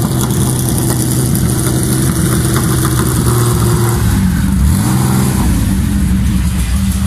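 Classic Porsche 911 rally car's air-cooled flat-six running at low revs. About four seconds in the engine note dips and then picks up again before settling.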